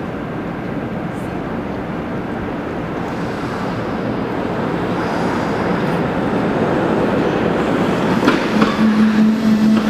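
Kawasaki K-Car light rail vehicle rolling along its rails, a steady rumble that grows louder as the car approaches. Near the end a steady low hum with higher overtones and a few clicks join in as the car moves past.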